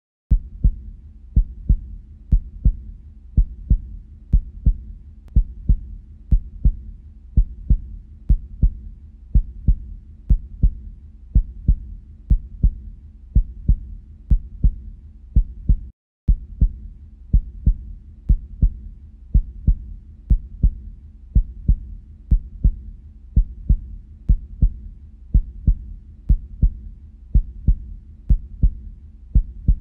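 Heartbeat sound: steady double thumps, lub-dub, about one a second, over a faint low hum. It drops out for a moment about halfway through, then carries on at the same pace.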